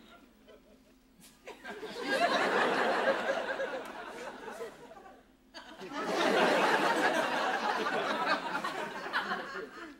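Studio audience laughing, starting about a second and a half in, dropping away briefly about five and a half seconds in, then breaking out again.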